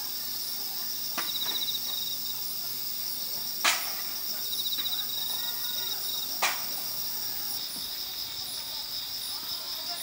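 A chorus of night insects chirring in a steady high-pitched drone, with a separate pulsing trill twice, about a second in and again about four and a half seconds in. Two sharp clicks, about three and a half and six and a half seconds in, are the loudest sounds.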